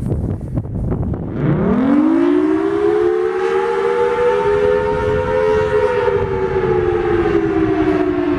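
Federal Sign & Signal Thunderbolt 1000T fire siren starting up about a second and a half in: its pitch sweeps up quickly as it winds up, holds as a pair of close tones, then slowly falls. Wind buffets the microphone before it starts.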